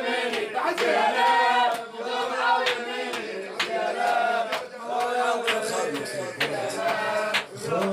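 A crowd of men chanting a Shia shour lament refrain in chorus, with sharp rhythmic chest-beating strikes about once a second.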